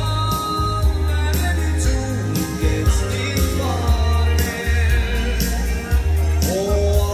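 A live danseband plays an upbeat dance tune through its PA, with a singer over a steady drum beat and a strong bass line.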